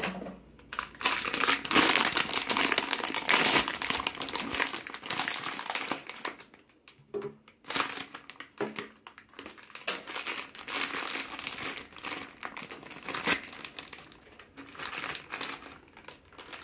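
Foil blind-box bag and the clear plastic bag inside it crinkling as hands open them and pull out the figure. The rustling comes in uneven runs, with a short break about seven seconds in.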